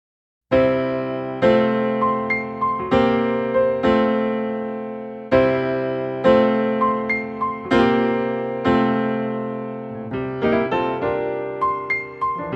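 Intro music: a solo electric piano playing slow chords, each note struck and fading away.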